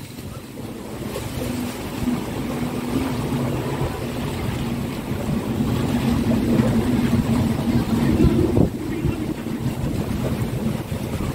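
Typhoon-force wind blowing over rough harbour water and buffeting the microphone, with a steady low drone underneath that swells and then drops away sharply about three-quarters of the way through.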